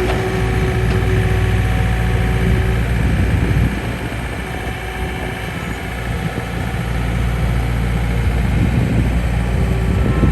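2007 John Deere 315 skid steer's diesel engine running steadily. It eases off a little about four seconds in and picks up again near the end.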